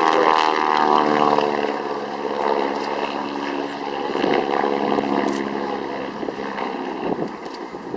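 Boeing Stearman biplane's radial engine and propeller passing overhead, the engine note drifting lower in pitch over the first second or two and then settling into a fainter, rougher drone.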